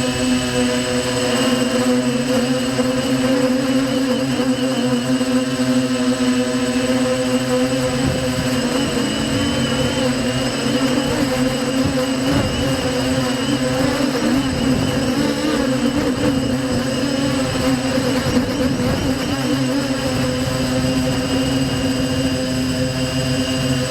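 Quadcopter's brushless motors and 5045 propellers running with a steady, high buzz and the pitch wavering in the middle.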